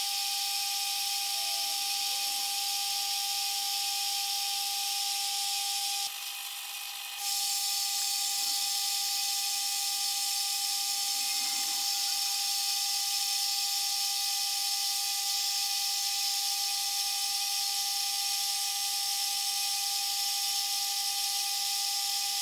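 Metal lathe running while turning a steel shaft, a steady high whine from its motor and drive with a hiss over it. The whine drops away for about a second roughly six seconds in, then returns unchanged.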